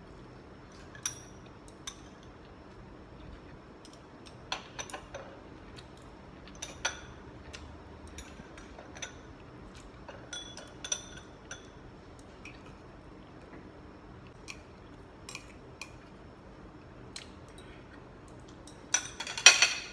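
Cutlery clinking against a plate or bowl now and then while eating, with a louder burst of clatter near the end.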